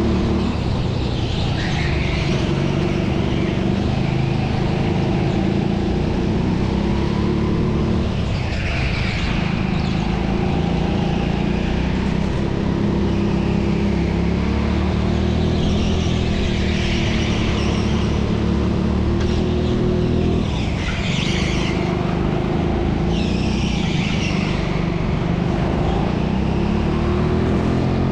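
Indoor racing kart engine running hard under racing load, its revs dropping briefly twice and picking up again, with several short higher-pitched scrubbing noises between.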